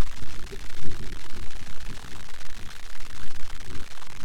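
Wind buffeting an outdoor camera microphone: an uneven low rumble over a steady hiss.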